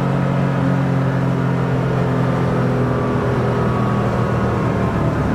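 Porsche 911 SC's air-cooled flat-six engine, rebuilt to 3.2 litres, running under way at a fairly steady engine speed, with tyre and road noise.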